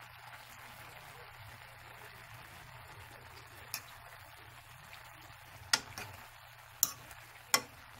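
Metal fork clinking sharply against a metal pot of cooked macaroni, a few separate clicks in the second half, loudest near the end, over a faint steady hiss.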